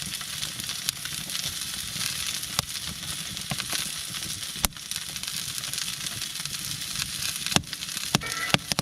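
Steak sizzling as it cooks over a campfire: a steady frying hiss with occasional sharp pops.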